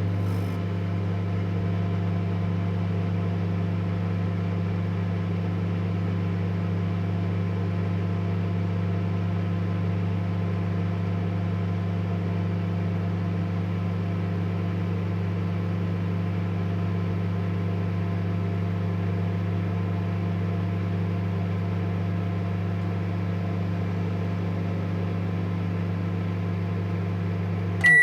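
Microwave oven running through its cooking cycle: a steady, unchanging electrical hum with its fan, cutting off right at the end.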